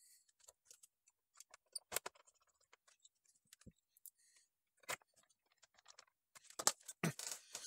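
Scattered light clicks and ticks of a hand screwdriver turning the small screws that hold a 2.5-inch SSD in a laptop's drive bay, a little louder near the end.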